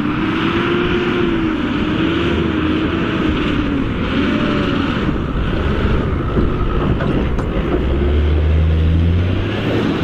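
Hydrema 922C articulated dump truck's diesel engine working hard as the truck drives through deep mud, its pitch rising and falling with the revs.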